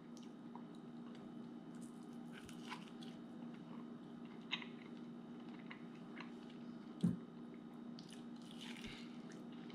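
Faint chewing of a chicken wing, with a few soft mouth clicks and smacks over a steady low hum.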